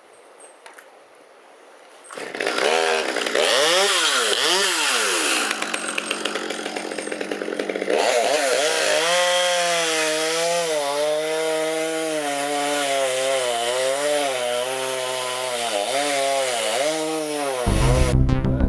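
Chainsaw starting up about two seconds in, revved up and down twice, then running at high speed for about ten seconds with its pitch sagging now and then as it cuts into wood. Electronic music comes in near the end.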